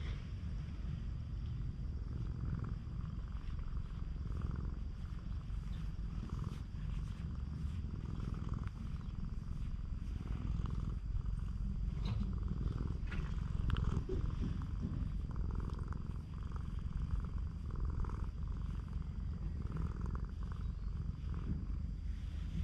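Stray cat purring steadily and close up while a hand strokes its chin and head.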